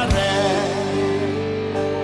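Music from a Brazilian gospel song: a man sings over a band backing with guitar, and long steady notes are held through most of it.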